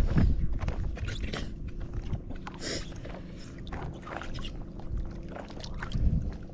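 Irregular scraping and knocking over a low steady hum.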